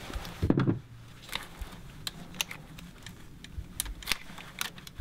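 Small plastic clicks and rattles of an engine control unit's wiring-harness connector being unlatched and pulled upward off the unit, with a brief low thud about half a second in.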